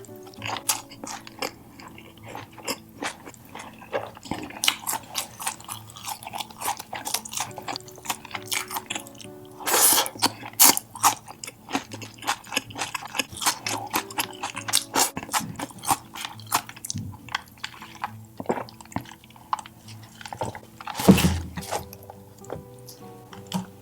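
Close-miked chewing and crunching of food, a dense run of wet clicks and crunches, with two louder noisy bursts about ten seconds in and near the end. Light background music runs under it.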